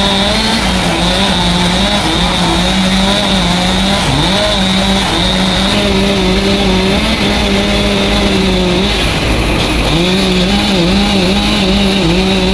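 Chainsaw running at high revs, cutting wood; its engine note drops and picks back up about four seconds in and falters again around nine seconds in.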